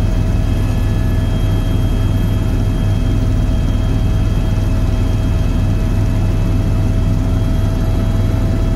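Helicopter in flight heard from inside the cabin: the rotor and engine make a loud, steady low drone, with a few steady high whining tones over it.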